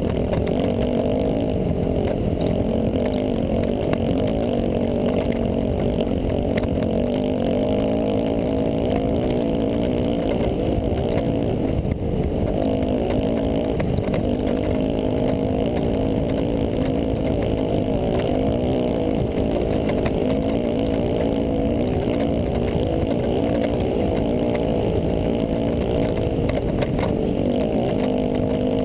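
Dirt bike engine running under load at fairly steady revs while riding a sandy desert trail, with only small rises and dips in pitch.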